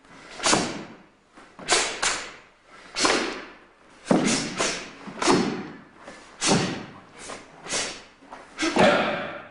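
A karate gi snapping with each fast block and strike of the Shotokan kata Heian Sandan, together with bare feet slapping a wooden floor: about a dozen sharp snaps, some in quick pairs, each echoing in the large hall.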